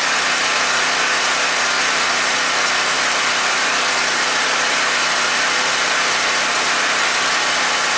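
WEN 4050 generator's four-stroke engine running steadily on half choke, without surging. Its carburetor is probably about half plugged with varnished old gas.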